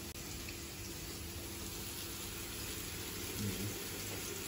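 Faint steady sizzle of köfte (meatballs) frying in a pan.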